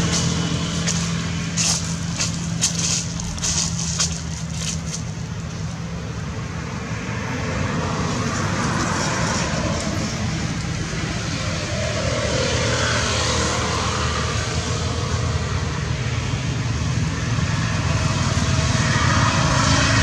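Steady motor-vehicle engine and traffic noise, with a run of sharp clicks in the first few seconds.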